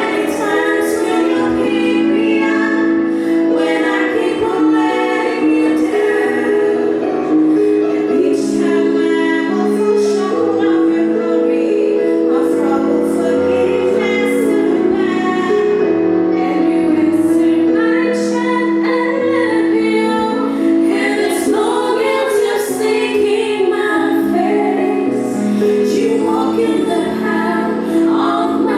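Gospel vocal group singing a slow song in harmony, several voices holding notes together, with female voices prominent.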